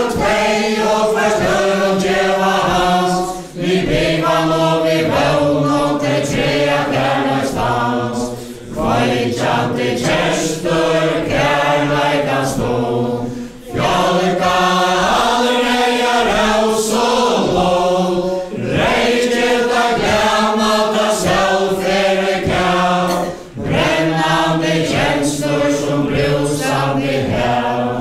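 A mixed group of men and women singing a Faroese dance ballad together, unaccompanied, for the Faroese chain dance. The song goes in lines of about five seconds, with a short break for breath between lines.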